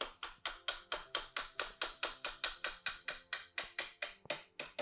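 Spoon beating soft butter in a stainless steel bowl, clicking against the metal about four to five times a second in an even rhythm.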